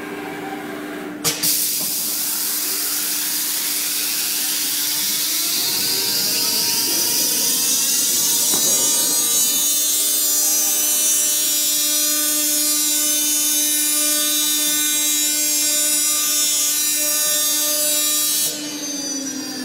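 CNC router spindle with its fifth tool freshly loaded by the automatic tool changer. It starts with a click about a second in, spins up with a rising whine, then runs at speed with a steady high whine, cutting into the wooden board, and cuts out shortly before the end. A steady low hum runs underneath.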